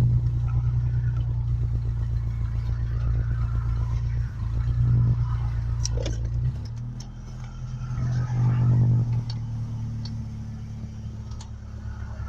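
Truck engine running, rising in revs briefly about five seconds in and again about eight and a half seconds in; its sound drops back about six and a half seconds in. A few faint ticks are heard over it.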